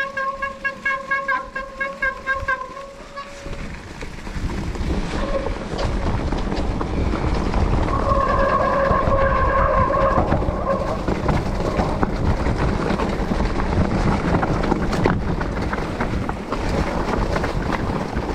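Mountain-bike disc brakes squealing on a wet ride: a steady high-pitched squeal that pulses rapidly for the first three seconds and returns for about two seconds midway. Between and after the squeals, wind rushes over the microphone and the tyres rumble over a rocky trail.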